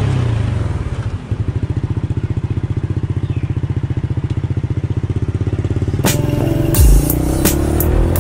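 Motor scooter engine running with a steady, rapid putter as the scooter moves off. About six seconds in, music with a beat comes in over it.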